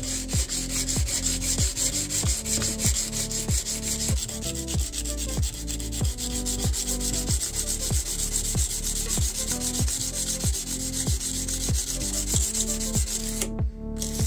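Sandpaper rubbed by hand along a steel knife blade in quick, even strokes, putting tang-to-tip sanding marks on the steel. Background electronic music with a steady kick-drum beat plays throughout.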